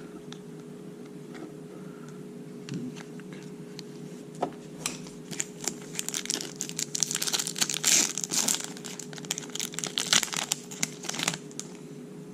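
Foil trading-card pack wrapper being torn open and crinkled: a few faint clicks, then dense crackling from about five seconds in that stops about a second before the end. A low steady hum runs underneath.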